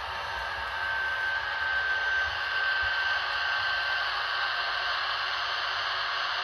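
HO-scale model electric locomotives running on sectional track: a steady whirring hiss of motors and wheels, with a thin high whine that fades out about two-thirds of the way through.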